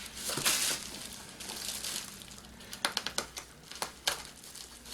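Packaging being opened by hand: crinkling and rustling, with a few sharp clicks and snaps about three to four seconds in.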